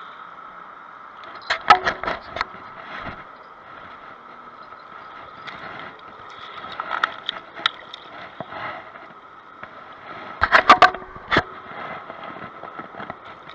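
A landed striped bass being handled on shoreline rocks: three short bursts of sharp slaps and pebble clatter, the loudest near the end, over a steady background hum.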